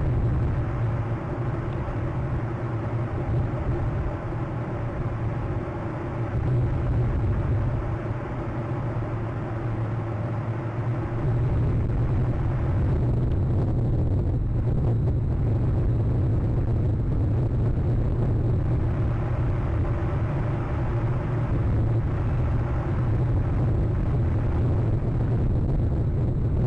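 Storm wind buffeting the nest camera's microphone: a loud, steady low rumble that eases a little midway and then swells again.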